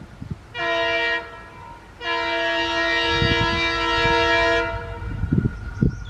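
Indian Railways locomotive horn: a short toot, then a long blast of about two and a half seconds, with a low rumbling underneath as the train approaches.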